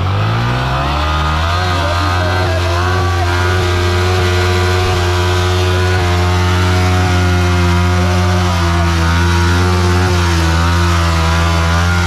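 Yamaha MT-15's single-cylinder engine revving up over the first second or so, then held at high, steady revs while its rear tyre spins on dry dirt and grass in a standing burnout.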